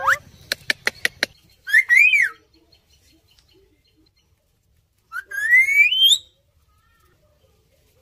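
Indian ringneck parakeets whistling: a quick run of about five clicks, then a short call that rises and falls about two seconds in, and a longer whistle gliding steadily upward from about five to six seconds.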